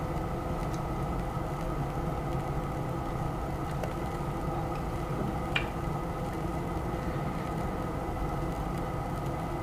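Steady electric whir of a fan or motor running, with a faint click about five and a half seconds in.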